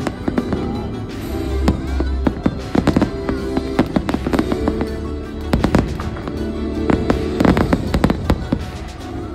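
Fireworks going off in many sharp, irregular bangs and crackles, with music playing underneath.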